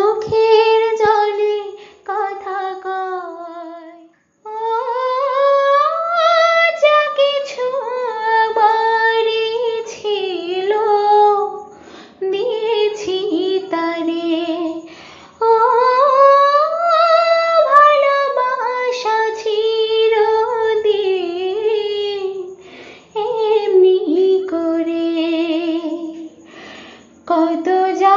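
A woman singing a Bengali song unaccompanied, in long sustained phrases with short breaks between them.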